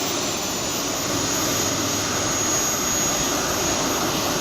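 B300F model jet turbine running with a steady high-pitched whine over a loud rushing exhaust noise.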